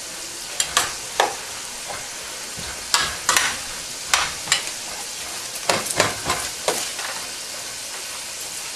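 Metal spoon scraping and clinking irregularly against a stainless steel pot while rice and sliced steak are stirred, over a steady sizzle of frying.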